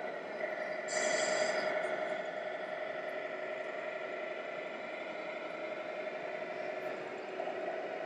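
Steady background din of a busy exhibition hall with model trucks running, with a brief louder hiss about a second in.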